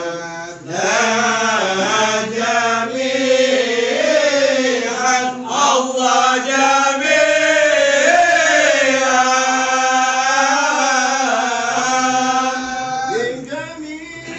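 Men's voices chanting marhaban, Malay devotional praises of the Prophet sung from books, with long drawn-out sliding notes. The chant fades near the end.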